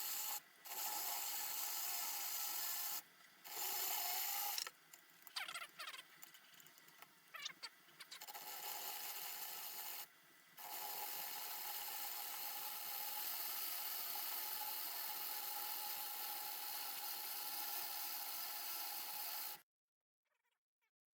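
Drill spinning a 3D-printed filament respooler, winding filament steadily in fast-forwarded audio, with several brief breaks and a stretch of uneven, changing sound in between. It cuts off near the end.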